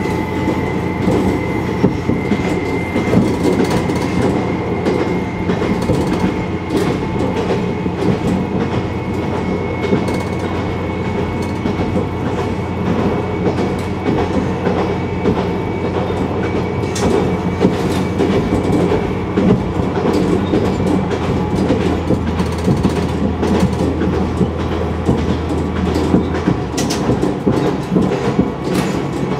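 Single diesel railcar running on the Nagara Railway line, heard from on board: a steady engine drone over wheels clicking across rail joints, with a faint high whine. About 26 seconds in, the low engine note drops.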